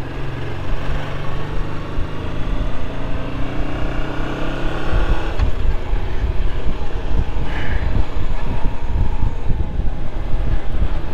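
Motorcycle engine pulling under way, its note rising steadily for about five seconds and then dropping away, under a constant heavy low rumble of wind and road noise.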